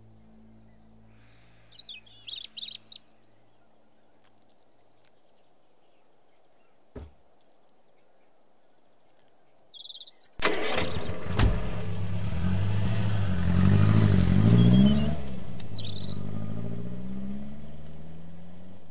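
A few bird chirps, then a single thump about seven seconds in. About ten seconds in, a car engine starts suddenly and revs, rising and falling in pitch, then fades steadily as the car drives off down the street.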